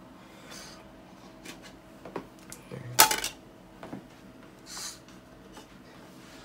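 A few light clicks and one sharp knock about three seconds in, with a brief hiss a little before the end: handling sounds at a desktop computer while a disc is being ejected.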